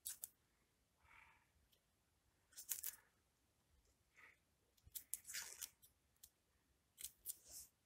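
Small knife cutting through a shallot held in the hand, making short crisp cuts in three brief clusters.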